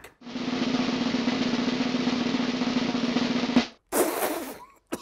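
Snare drum roll played as a suspense sound effect, steady for about three and a half seconds and then cut off abruptly. A brief loud noisy hit follows just after it.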